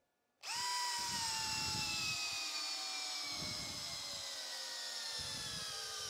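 Bosch Profactor GSB18V-1330C brushless cordless drill driving a large lag screw into stacked pine lumber. Its whine starts suddenly about half a second in and slowly drops in pitch as the motor loads down with the lag sinking deeper, with low rumbles from the wood underneath.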